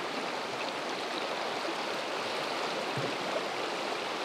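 Fast river current rushing over a shallow rocky riffle: a steady rush of water.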